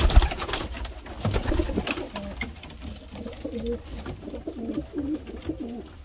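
Racing pigeons cooing, low wavering coos repeating over and over. A thump and a few sharp clicks come in the first two seconds.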